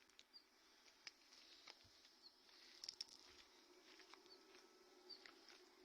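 Near silence: faint background noise with a few soft clicks and a few faint high chirps.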